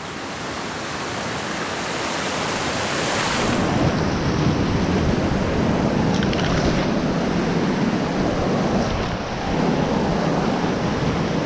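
Whitewater rushing over a river weir, a steady roar of broken water that swells over the first three or four seconds, dips briefly near the end, and then carries on.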